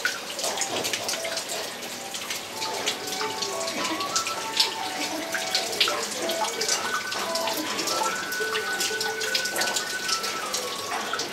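Water running and dripping down a stacked-slate wall fountain into a small pond: a steady patter of splashes over a hiss of falling water. A melody of music plays faintly underneath.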